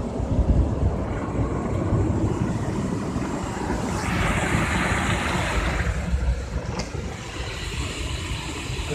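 D&S IQ Soft Touch 2.0 automatic car wash heard from inside the car: a steady low rumble of the wash running over the car. About four seconds in, a hissing spray sweeps across the foam-covered windshield for about two seconds.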